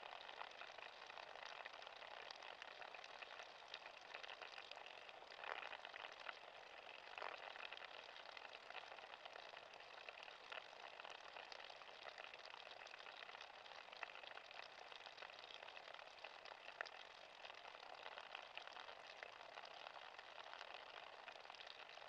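Faint, steady trickle and patter of meltwater running and dripping off ice, with a couple of slightly louder splashes about five and seven seconds in.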